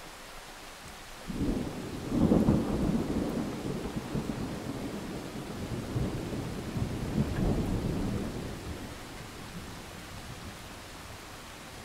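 A long rolling rumble of thunder over steady rain. It swells about a second in, is loudest a second later, rolls on with a couple more swells, and dies away near the end.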